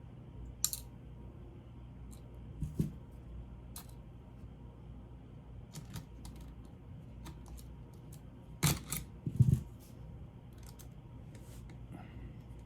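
Small metal screws and a screwdriver clicking and tapping against a laptop's motherboard and plastic case as the board's screws are put back, in scattered single clicks with a louder cluster of knocks about two-thirds of the way through, over a low steady hum.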